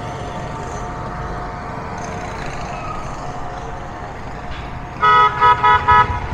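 A vehicle horn sounds four short toots in quick succession about five seconds in, over steady street noise.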